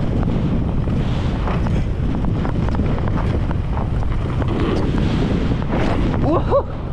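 Wind buffeting the microphone of a camera on a mountain bike moving fast down a dirt course, over a steady low rumble with scattered short rattles and knocks from the bike. Near the end comes a brief squeal that rises and falls in pitch.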